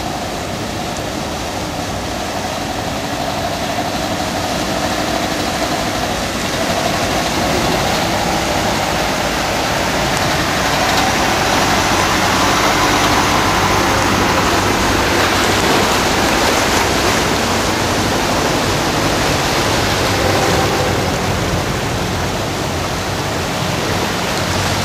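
Vehicles wading through deep street floodwater in a downpour: a dense, steady rush of splashing water and rain, with engine hum underneath. The rush swells through the middle and eases a little near the end.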